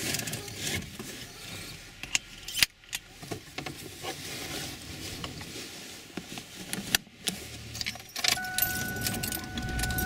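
Handling sounds in a car: keys jangling, clothing rustling and sharp clicks as a seatbelt tongue is pushed into its buckle. Near the end a steady electronic tone comes on.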